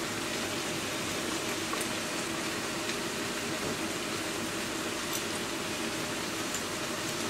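Browned ground beef sizzling steadily in a frying pan, with a few faint clicks.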